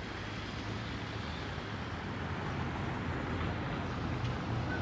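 A 1958 Fiat Materfer series 3000 tram rolling slowly toward the listener on street tracks: a steady low hum over a noisy rumble, growing slightly louder as it comes closer.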